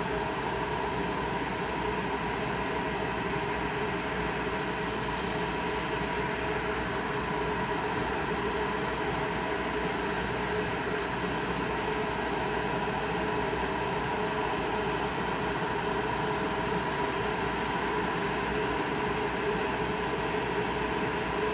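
Newag Griffin EU160 electric locomotive standing at the platform, its blowers and electrical equipment running with a steady hum and a few held tones.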